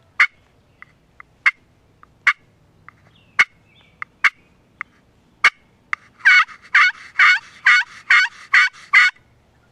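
Wild turkey hen calls: scattered single sharp clucks, then a run of about eight yelps, close and loud, the kind of calling that draws in gobblers.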